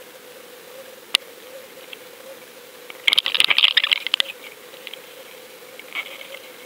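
Underwater recording: a steady faint hum, one sharp click about a second in, and a burst of rapid clicking and rattling about three seconds in that lasts about a second.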